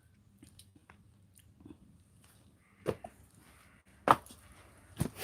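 A person chewing quietly on a freshly picked strawberry, with three short, sharp clicks in the second half.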